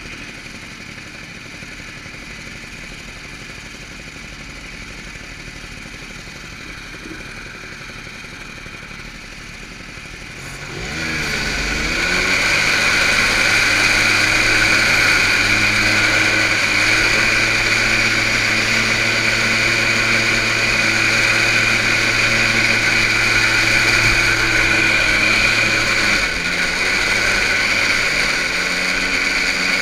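Small engines running, a steady hum at first, then much louder about eleven seconds in with brief revving before settling into a steady drone.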